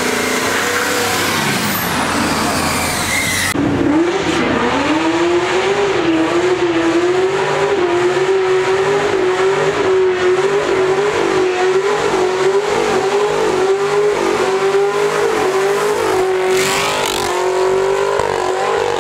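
A Mercedes-Benz E-Class estate drives by under throttle. Then, about three and a half seconds in, a Chevrolet Camaro does a burnout: its engine is held at high revs with a wavering pitch while the rear tyres spin and squeal. The engine note drops away just before the end.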